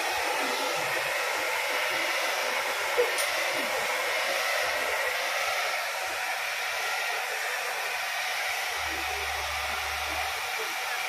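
Handheld hair dryer blowing steadily as it is worked through long hair, with one short click about three seconds in.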